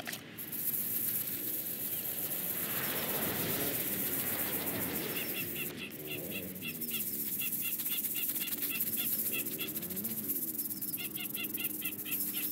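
A flat wooden scraper rasping across the lichen-crusted face of an old weathered headstone, scraping off biological growth. From about five seconds in, a run of quick, regular high chirps, about four or five a second, sounds alongside it.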